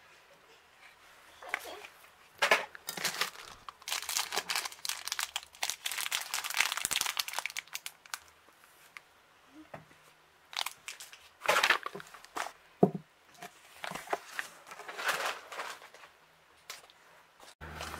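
Plastic packaging crinkling and rustling in irregular bursts, with short pauses, as small products in clear plastic bags and blister packs are handled.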